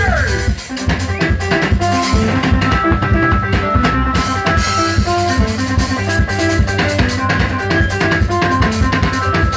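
Band music with a drum kit keeping a steady beat of kick and snare under a bass line, and a melody of short repeated notes. The music drops out for a moment about half a second in, then the drums come back in.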